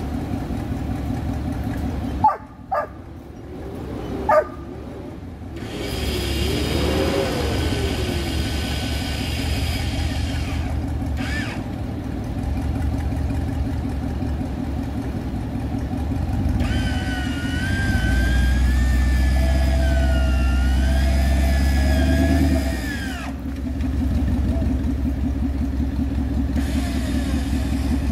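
Custom Toyota Land Cruiser BJ42's swapped-in 5.2-litre V8 engine running and revving as the truck works through a mud hole. A few sharp knocks come a couple of seconds in, and a high wavering whine rises and falls over the engine in the later part.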